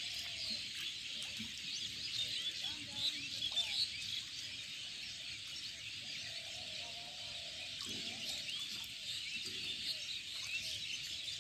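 Steady outdoor chorus of many small birds, a dense scatter of short chirps and tweets with no single call standing out.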